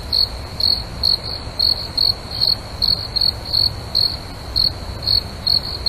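Crickets chirping at night: a steady high trill with louder, regular chirps two to three times a second, over a faint low rumble.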